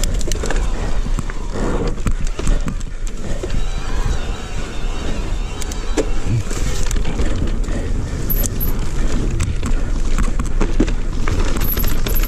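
Electric mountain bike ridden over rough singletrack: a constant low rumble from the tyres on dirt and stones, with the bike rattling and knocking over bumps many times.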